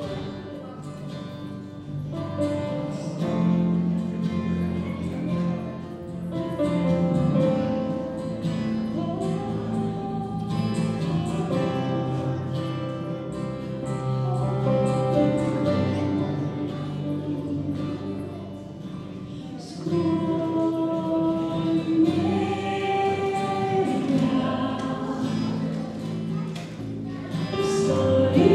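Church worship band performing a worship song: a group of singers with acoustic guitar, electric guitar and keyboard, growing louder near the end.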